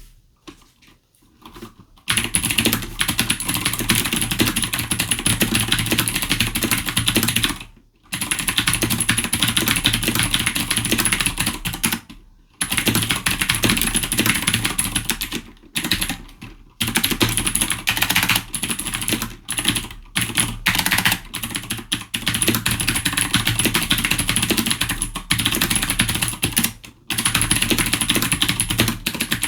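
Fast, continuous typing on an ASUS ROG Strix Scope PBT mechanical gaming keyboard with PBT keycaps. Dense keystroke clatter starts about two seconds in and runs in long stretches with a few brief pauses.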